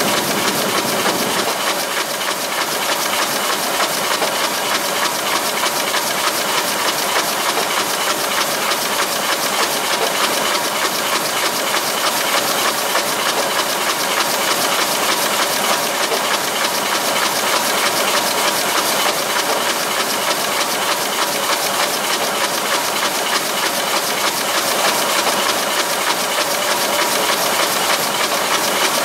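Komori Lithrone S40 sheetfed offset press running at speed, heard from inside its feeder: a loud, steady hiss with a fast, even mechanical clatter as sheets feed through.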